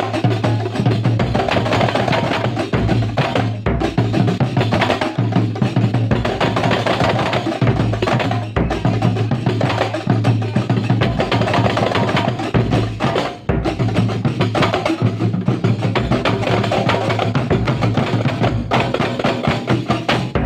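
Kuntulan percussion ensemble playing: fast, dense hand-drum strokes in an even rhythm over a steady low tone.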